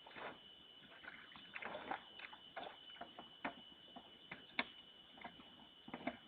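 A bear sloshing and splashing in water while digging for food: irregular wet splashes and knocks, several a second at times, over a steady high-pitched whine.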